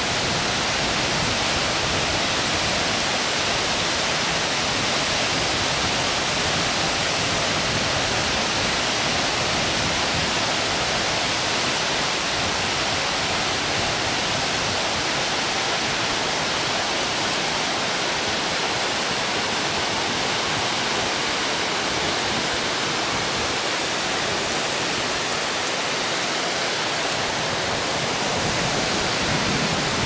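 A tall, narrow waterfall dropping into a pool at the foot of a rock gorge: a loud, steady rush of falling water.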